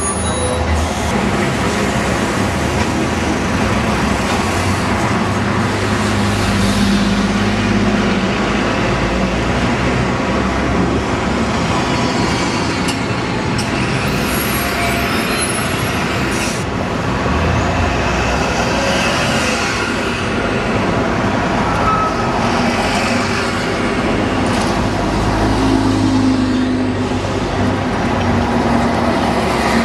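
Road traffic with diesel buses running past: a steady mix of engine hum and tyre noise that swells and fades as vehicles go by.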